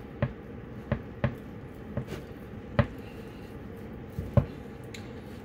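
Knife slicing a salt-cured trout fillet on a wooden cutting board, the blade tapping the board in about seven sharp, irregular knocks, the loudest about four seconds in.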